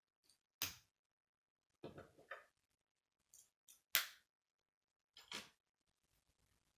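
K'nex plastic rods and connectors clicking as they are handled and snapped together: about six short, separate clicks, the loudest about four seconds in.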